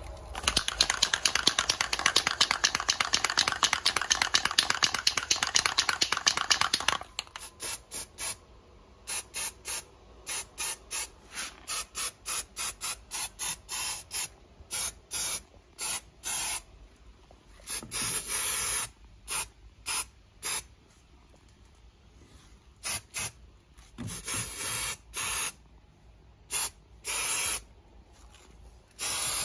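Aerosol can of underbody protection coating spraying onto a car's front suspension and driveshaft boots. It starts with a dense, rattling stretch of about seven seconds, followed by a run of short spray bursts, a few of them longer towards the end.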